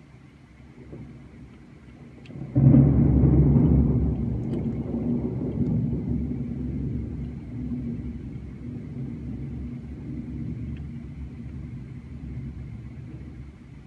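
A thunderclap breaks suddenly about two and a half seconds in and rolls on as a deep rumble that slowly fades, over faint steady rain.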